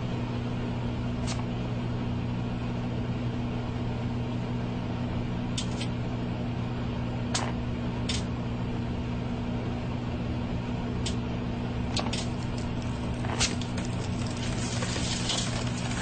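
Microwave oven switching on and running with a steady mains hum, while a mobile phone inside it gives off sharp snaps every second or two, likely sparking from the heated metal, building into dense crackling near the end.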